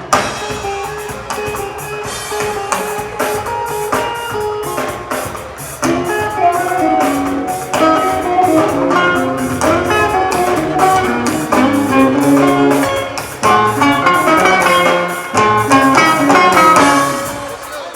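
Band music with guitars over a drum kit keeping a steady beat.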